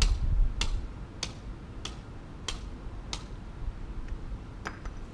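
Sharp clicks ticking at an even pace, about one every 0.6 seconds for the first three seconds, then two more near the end, over a steady low rumble.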